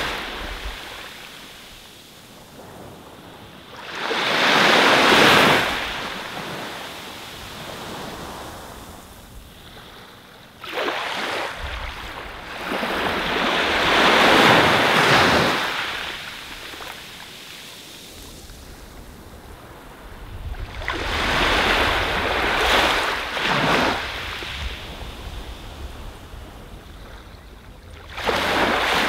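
Ocean surf: waves breaking and washing up the beach in slow swells, each rising and falling over a second or three, with a new one every six to eight seconds and a soft hiss and low rumble between them.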